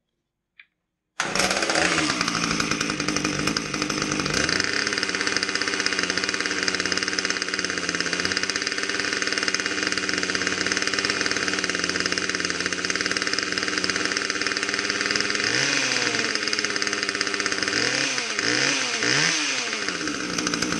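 Husqvarna T540 top-handle chainsaw's two-stroke engine running with the bar off, test-run after a worm gear replacement to check that it now oils. It starts suddenly about a second in, runs steadily, then is revved up and down several times near the end.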